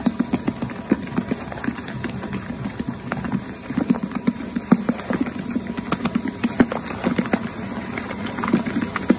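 Electric mochi-making machine running, the ball of rice dough in its bowl turning and thumping against the bowl in quick, irregular soft knocks, several a second, over the steady hum of the motor.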